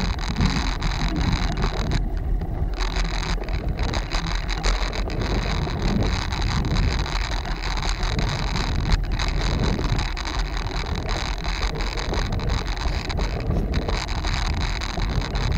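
Steady wind noise buffeting the microphone of a camera moving along a paved path, with a constant low rumble underneath.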